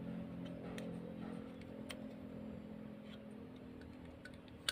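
Faint, scattered small clicks of a metal stapler's staple channel and spring parts being handled by fingers, with one sharper click near the end. A faint steady low tone fades away over the first few seconds.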